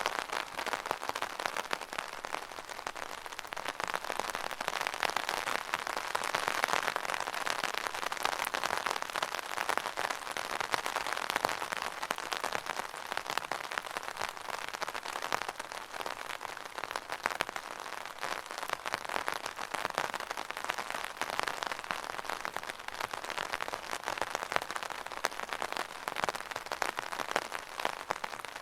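Steady rain drumming on an umbrella canopy: a dense, even patter of drops that swells slightly and eases but never stops.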